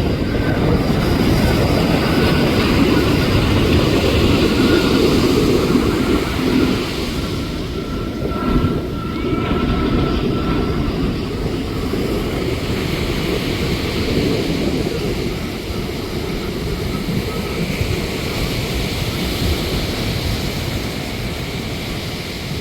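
Jet airliner passing overhead, its engines rumbling loudest for the first several seconds and then slowly fading, with a faint high whine in the middle.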